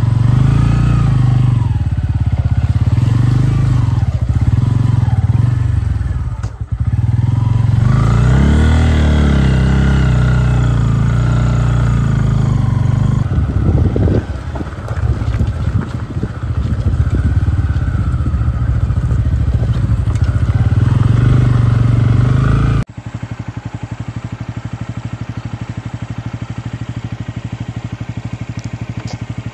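Motorcycle engine running as the bike rides slowly over a rough dirt track. About three quarters of the way through it drops suddenly to a quieter, steady idle.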